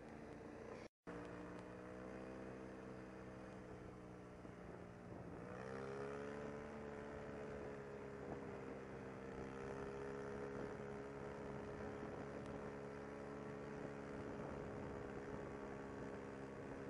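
ATV engine running under way at a steady speed, heard from the rider's own quad. About five and a half seconds in, the engine note rises as the machine speeds up, then holds steady. The sound cuts out completely for an instant about a second in.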